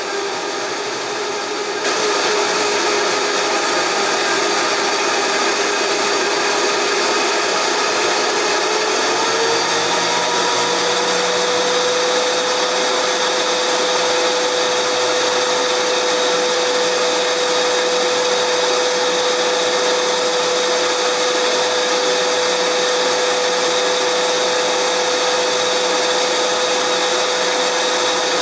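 Electric blender motor running continuously at high speed, a steady whine that gets louder about two seconds in and rises slightly in pitch about a third of the way through, then holds steady.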